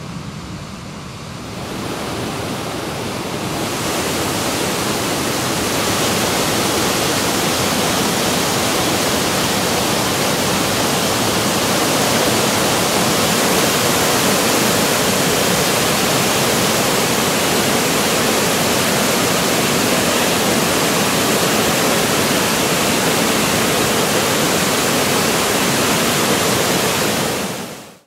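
Rushing water of waterfalls, a dense steady rush that swells over the first few seconds and cuts off sharply near the end.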